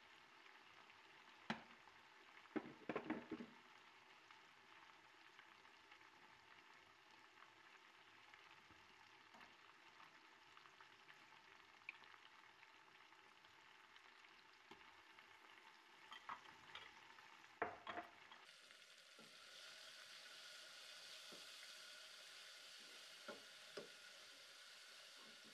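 Onions frying in oil in a pot, a faint steady sizzle, broken by clinks and scrapes of a metal spoon against the pot as spices are added. A little over two thirds of the way in, the sizzle grows louder and brighter, and there are a few more scrapes as the mixture is stirred.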